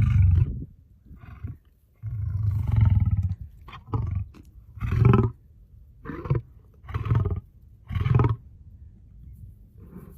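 Lion roaring in a bout: a long roar about two seconds in, then a series of five shorter roars roughly a second apart.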